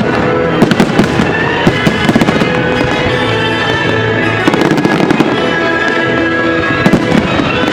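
Fireworks going off: many sharp bangs and crackles in quick, irregular succession, over music with long held notes.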